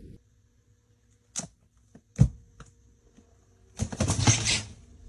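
A few sharp knocks over about a second, then a short, dense clatter a little over a second later.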